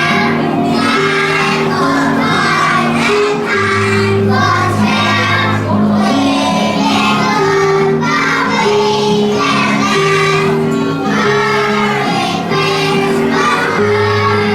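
A group of young children singing together over instrumental music, with low accompaniment notes held and changing in steps.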